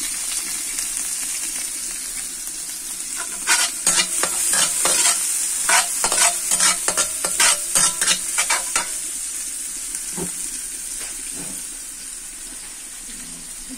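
Chopped garlic and spring onion sizzling in oil in a stainless steel wok, with a spatula scraping and knocking against the pan in a quick run of strokes from about three and a half to nine seconds in. After that the sizzle goes on alone, a little quieter.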